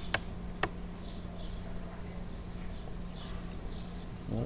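Two sharp computer-mouse clicks about half a second apart near the start, over a steady low hum. Faint high chirps come and go.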